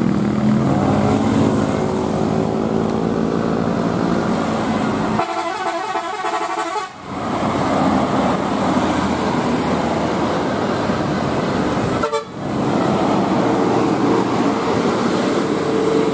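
Bus 'telolet' horns, multi-tone musical air horns, playing runs of notes over bus engines and road noise, with two abrupt breaks.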